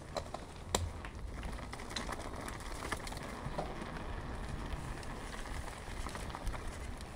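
Mountain bike rolling downhill over a rough track: a steady crackling rush of the tyres, with scattered sharp clicks and rattles from the bike and a low rumble of wind on the microphone.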